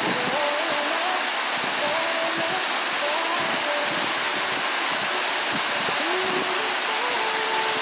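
Steady rushing of a waterfall, an even hiss that neither rises nor falls.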